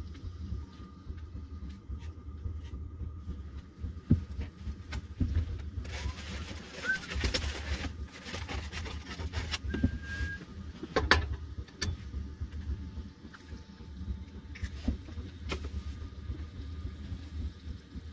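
Ham frying in a skillet on a propane camp stove, over a low steady burner rumble, with a louder stretch of hiss lasting about three seconds partway through. Scattered clicks and knocks of the pan and of an egg being cracked into it, the sharpest a little past the middle.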